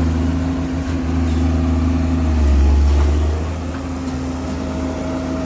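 Komatsu excavator's diesel engine running steadily, swelling louder for about a second near the middle as it takes on load, then settling back.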